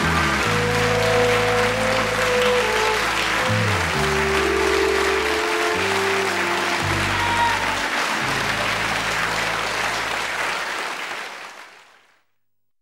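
Sitcom closing theme music with held low notes, over a studio audience applauding; both fade out to silence near the end.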